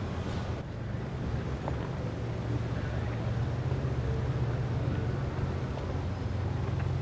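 Low, steady rumble of a Wajer 44 motor yacht's inboard engines cruising slowly, growing a little louder about two seconds in as it comes closer, over a hiss of water wash.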